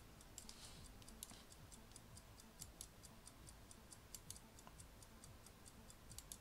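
Near silence: room tone with a faint, rapid ticking of about six light clicks a second.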